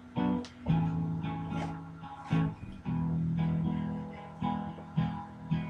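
Background guitar music: chords struck and left to ring.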